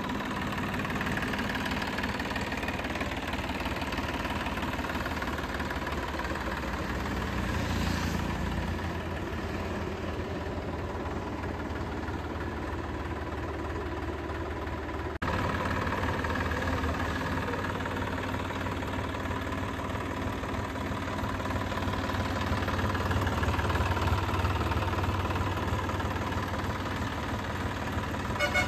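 Massey Ferguson 9000 Planetary Plus tractor's diesel engine idling steadily, with a brief abrupt cut about halfway through.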